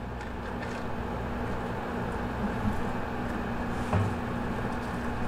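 Steady low mechanical hum with a thin steady tone, with faint scraping from a knife working under a fish's skin and one soft knock about four seconds in.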